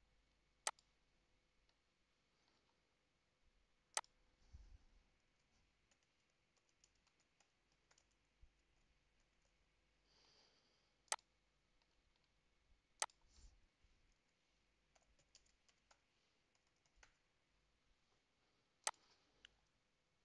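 Computer mouse clicks and keyboard typing: about five sharp separate clicks spread out, with faint runs of light key taps between them, over near silence.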